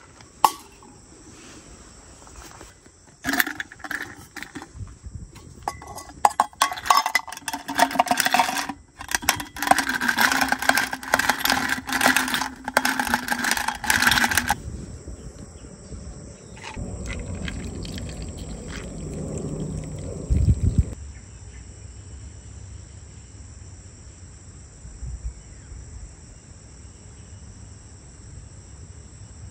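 Insects, crickets among them, chirring steadily in the background. For about eleven seconds from three seconds in, a loud, busy clatter of close handling noise covers them, followed by a few seconds of low rumble.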